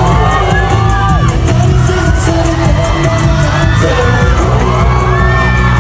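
Loud live K-pop concert music over arena speakers, with a heavy, steady bass line and voices singing and whooping over it.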